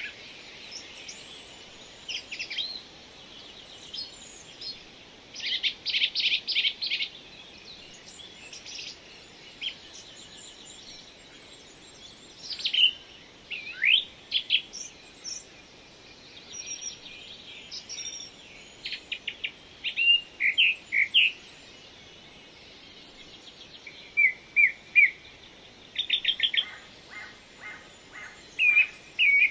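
Several small birds singing and calling: short chirps, whistled notes sliding up and down, and quick rattling trills, coming in scattered bouts over a faint steady hiss.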